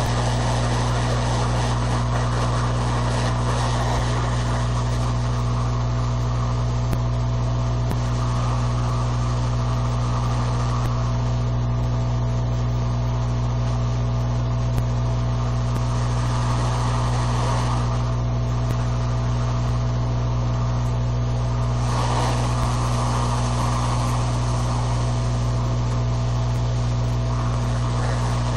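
Hot air rework station blowing steadily, a constant fan hum under an airy hiss, as it heats the board to lift and reseat a surface-mount chip. The hiss thins out for stretches and comes back, around 11 to 18 seconds in and again near 22 seconds.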